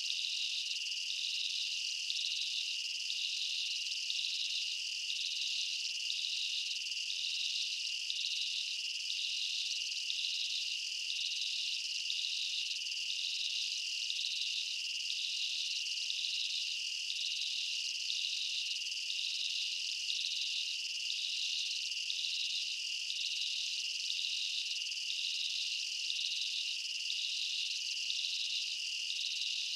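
Insect chorus: a steady high-pitched drone with a regular pulsing over it, a little more than once a second, going on unchanged throughout.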